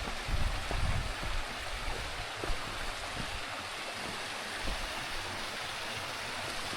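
Shallow mountain stream rushing steadily over rocks, with a few faint knocks in the first half.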